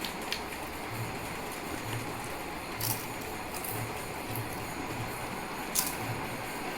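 Potato chips being chewed: a few sharp crisp cracks over steady chewing noise, with soft low pulses about once a second.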